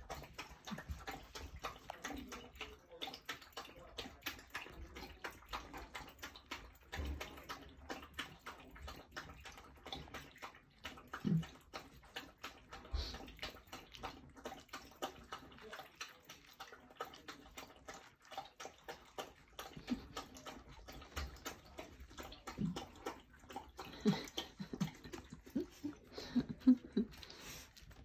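Two-week-old Nova Scotia duck tolling retriever puppies scrabbling and shuffling on a blanket in a plastic kiddie pool, with soft scratching and scuffing, and small puppy grunts several times, more of them near the end.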